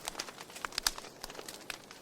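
Wood fire crackling: irregular sharp pops and snaps over a low hiss, the loudest pop a little under a second in.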